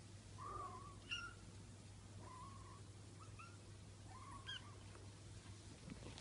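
A four-week-old Bengal kitten mewing faintly: about five short, high little calls, some rising into a chirp.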